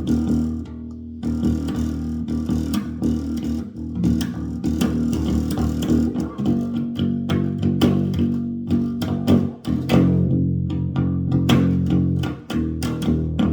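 Electric bass guitar played freestyle for strange noises: sustained low notes under a run of sharp plucks, slaps and clicky string attacks.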